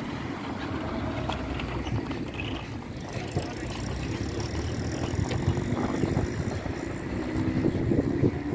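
Outdoor street ambience: a steady hum of traffic with wind rumbling on the microphone.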